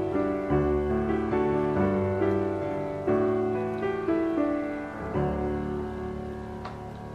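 Background piano music, a melody of notes struck about every half second, growing quieter over the last two seconds.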